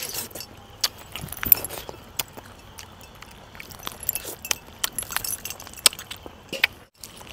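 A man eating by hand: scattered small clicks and clinks from his chewing and from his heavy metal bracelets and chains jangling as he moves.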